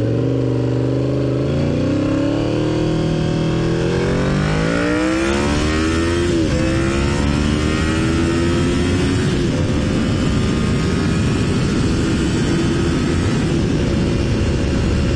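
Honda VFR V4 motorcycle engine accelerating hard. Its pitch climbs, drops sharply at a gear change about six and a half seconds in, and climbs again before holding steady at high speed. Heavy wind noise on a helmet-mounted microphone runs under the engine.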